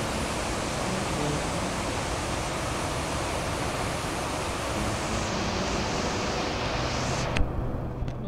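River water rushing steadily over rock shoals and small rapids. Near the end there is a single sharp click, and the rush turns duller as its hiss fades.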